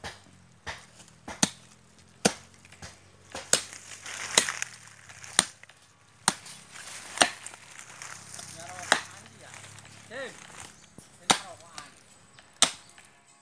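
Machete blade chopping into the roots at the base of a serut (Streblus asper) tree being dug out: about a dozen sharp chops, roughly one a second.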